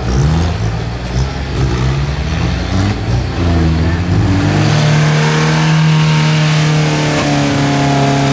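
Off-road 4x4 engines revving hard in mud, rising and falling unevenly at first. About halfway through, one engine is held at steady high revs.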